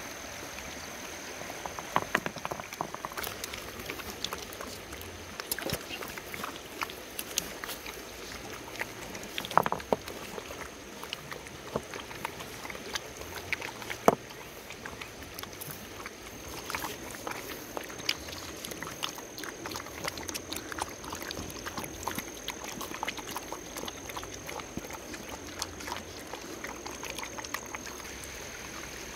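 Puppies lapping and chewing food from a bamboo trough: a run of irregular small wet clicks and smacks, with a few sharper clicks standing out, over a steady high-pitched whine.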